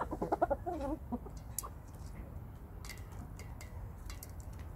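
Aseel chickens clucking: a quick run of clucks in the first second, then sharp clicks of beaks pecking feed from a stainless steel bowl.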